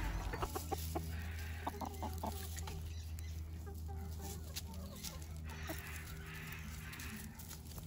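Chickens clucking softly and intermittently while they forage, with scattered faint scratches in the leaf litter.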